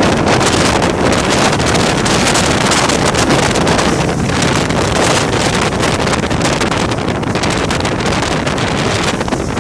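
Wind rushing over the microphone of a skier's camera at speed, mixed with the hiss of skis sliding over soft spring snow.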